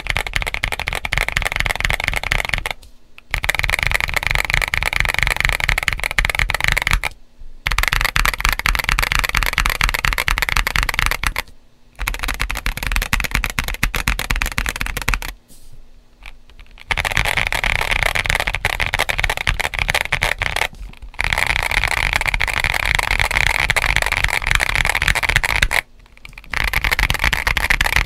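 Typing on a modded GAS67 mechanical keyboard, the 'crunchy' build, with Gazzew U4T tactile switches, MG White SA-profile ABS keycaps, tape mod, IXPE sheet and polyfill. The key clatter is continuous and fast, in runs of a few seconds with brief pauses every four to five seconds, the longest pause about halfway through.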